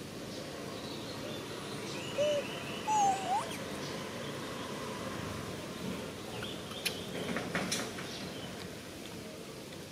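Steady outdoor hiss with two or three short, squeaky animal calls about two to three seconds in, one sliding sharply upward, and a couple of sharp clicks later on.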